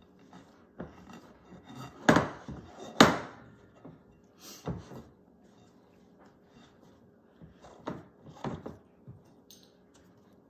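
Hands kneading cookie dough in a glass mixing bowl, with irregular knocks and thuds of the bowl. The two loudest knocks come about two and three seconds in, with softer ones scattered after.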